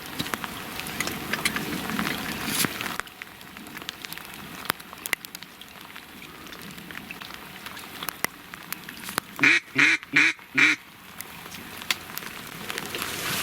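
Four loud hen-mallard quacks in quick succession about nine and a half seconds in, over steady rain pattering and dripping.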